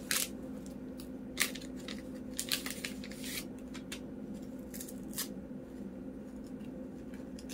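Paper tea bag wrappers being peeled and torn open by hand: short, irregular rips and crinkles, most of them in the first half, over a steady low hum.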